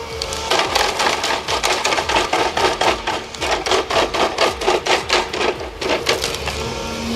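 Stump grinder's cutter wheel chewing into a stump: a rapid run of sharp cracking hits as the teeth chip the wood, about four a second, over the steady hum of the machine's engine.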